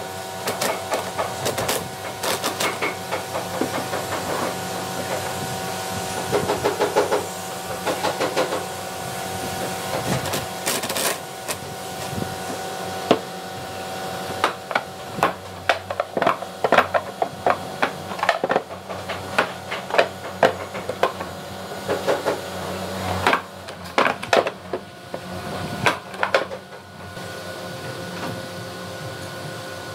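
Cordless Makita drill/driver driving screws into wood in repeated short runs, heard as clusters of rapid clicks and knocks, over a steady hum.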